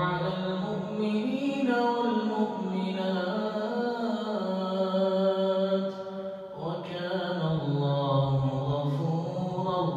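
An imam's voice reciting the Quran in a melodic, drawn-out chant, holding long notes that glide slowly in pitch. There is a brief break for breath about six seconds in, then the recitation resumes.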